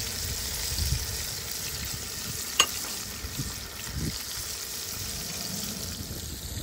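Largemouth bass nuggets deep-frying in hot oil, a steady bubbling sizzle, with one sharp click about two and a half seconds in.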